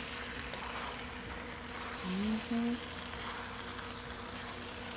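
Chicken and shrimp sizzling steadily in a pan of stir-fry vegetables and sauce, with a short hummed voice sound about two seconds in.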